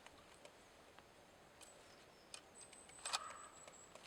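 Near silence after the chainsaw has stalled, broken by a few faint clicks and light knocks, the strongest about three seconds in.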